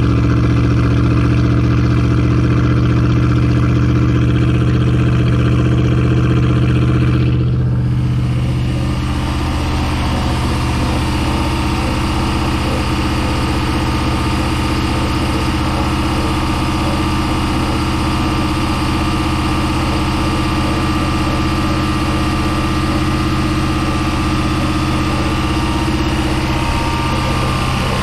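Cabin cruiser's inboard engine idling steadily on its first start-up, with a steady low hum whose tone shifts and softens slightly about eight seconds in.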